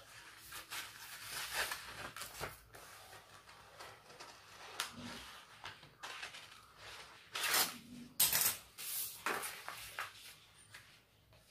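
Paper blouse pattern pieces rustling and sliding on a stone floor as they are handled and laid one over the other, in irregular strokes with a cluster of louder, crisper rustles about eight seconds in.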